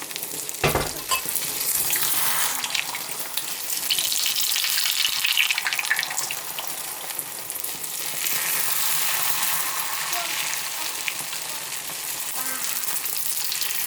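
Vegetables sizzling in hot oil in a pot while being stirred, with scattered clicks and one sharp knock just under a second in.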